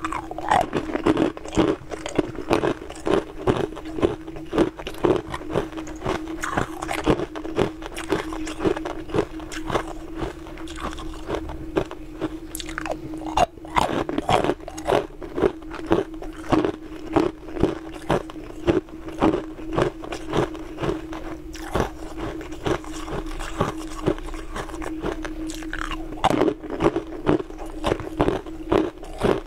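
Pieces of moulded ice being bitten and crunched between the teeth, sharp cracking crunches coming in quick succession, more than one a second, over a steady low hum.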